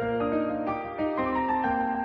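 Background music: a piano melody played over a sustained low bass note.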